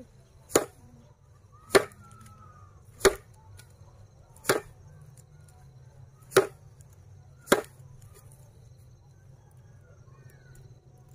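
A bundle of dried broom grass swung and beaten down hard, six sharp whacks over about eight seconds, then it stops.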